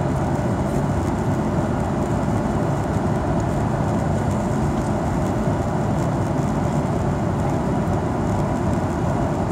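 Steady cabin noise of a Boeing 737-800 on approach, heard from a seat over the wing: the CFM56 turbofan engines and rushing airflow as an even, low rumble with no changes.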